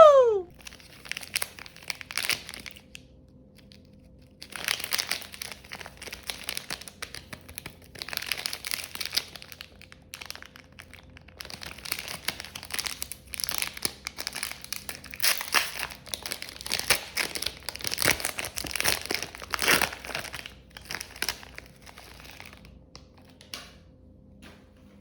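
Irregular crackling and crinkling, coming in clusters of dense small clicks several seconds long with short pauses between them.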